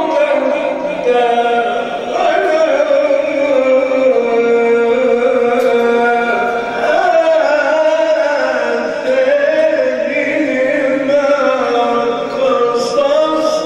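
A man singing a long, ornamented Arabic vocal line, holding and bending notes in a Middle Eastern style.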